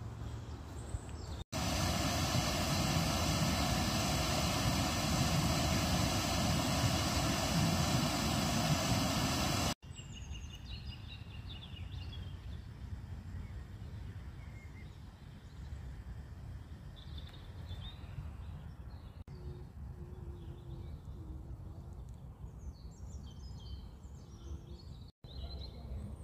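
A loud, steady rushing rumble with a hum running through it lasts about eight seconds and cuts off suddenly. After it comes a much quieter stretch with scattered bird chirps.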